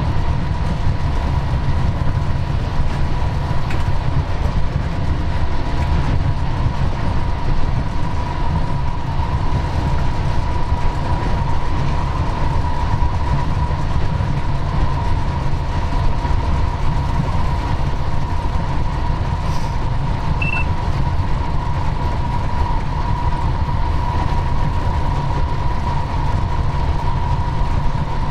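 Cab interior of a Vossloh G 1206 diesel-hydraulic locomotive under way: a steady, loud low rumble of engine and wheels on rail, with a constant whine near 1 kHz.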